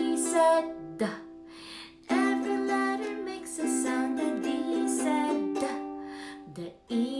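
A woman sings a children's alphabet phonics song, the verses for the letters after C, over a strummed string accompaniment in a steady rhythm.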